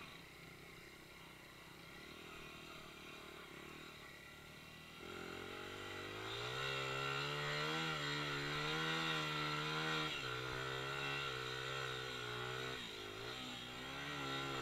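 Dirt bike engine revved hard and held high to keep the rear wheel spinning a donut in sand. It runs lower for the first few seconds, revs up about a third of the way in, dips briefly twice, and drops back near the end.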